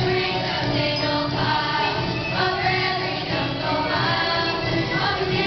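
A group of young performers singing a marching song together over musical accompaniment.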